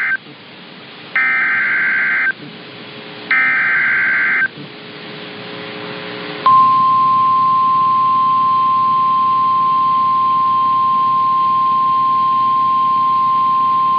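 NOAA Weather Radio alert signal. First come SAME digital header bursts: the tail of one, then two more, each about a second long and about a second apart. About six seconds in, the steady single 1050 Hz warning alarm tone starts and holds. Together they announce that a weather warning broadcast is about to follow.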